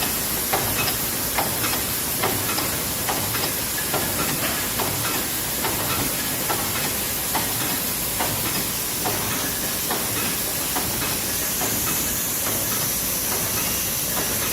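Plastic bag sealing machine running: a steady hiss with light clicks about every three quarters of a second.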